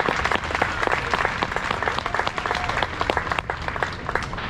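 Crowd applauding: a dense patter of hand claps that thins out near the end.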